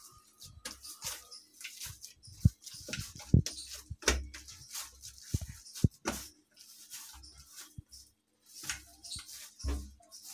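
Hands kneading and pressing oiled bhatura dough in a steel plate: irregular soft thuds and slaps, a couple of them louder, with crackly sticky sounds between.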